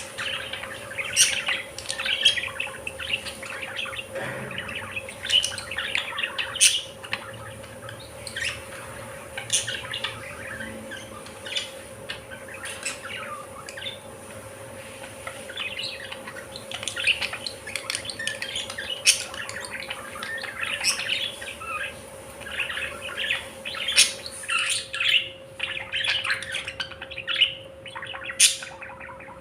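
A group of budgerigars chirping and chattering, many short overlapping calls with now and then a sharper, louder call. A faint steady hum runs underneath.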